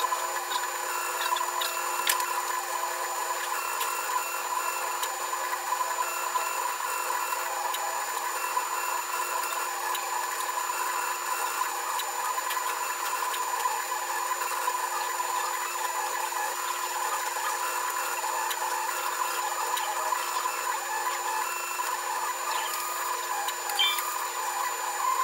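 UP Plus 2 3D printer printing: its stepper motors make quick, shifting whining tones over a steady hum from the extruder fan.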